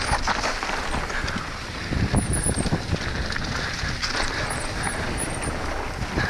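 A Trek Slash 9.8 full-suspension mountain bike riding a dirt trail at speed: the knobby tyres roll over dirt and leaves and the bike rattles over bumps, with a harder jolt about two seconds in. Wind rushes over the microphone throughout.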